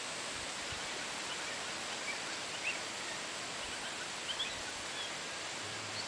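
Steady outdoor background hiss with a few faint, short bird chirps scattered through it.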